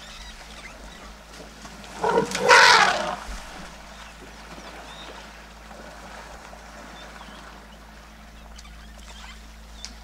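A young African bush elephant bull trumpets once, a loud blast lasting about a second, starting about two seconds in, over the low steady sloshing of water as the bulls wrestle in the waterhole.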